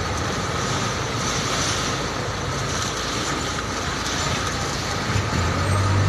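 Heavy diesel truck engine running close by, from a Hino 500 tractor unit: a steady low drone over a wash of engine and yard noise, growing louder about five seconds in.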